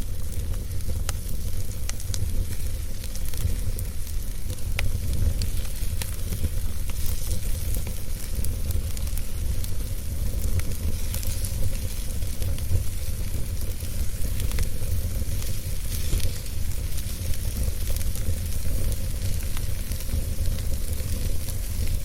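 Wood fire burning in a fireplace: a steady low rumble and hiss, with scattered sharp crackles and pops.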